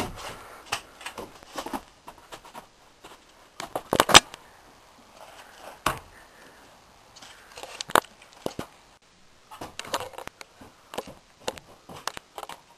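Scattered knocks, clicks and rustling handling noises at irregular intervals, with the sharpest knocks about four and eight seconds in.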